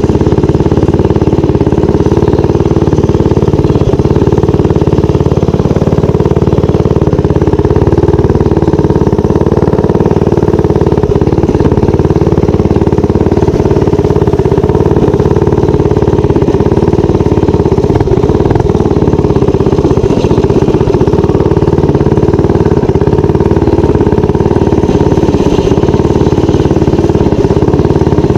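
Minibike engine running at a steady, nearly constant speed while the bike is ridden, loud and close.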